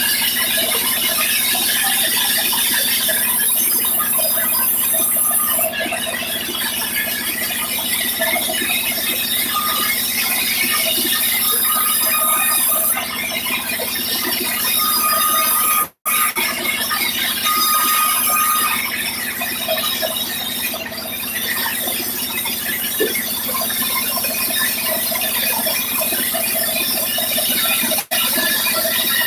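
Sawmill saw running and cutting timber: a loud, continuous noise strong in the high end over a steady hum, broken by two momentary dropouts, about halfway through and near the end.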